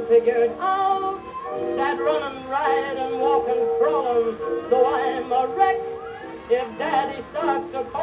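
Music from a 1922 acoustic-era OKeh 78 rpm shellac record playing on a turntable: an old song with band accompaniment and wavering melodic lines.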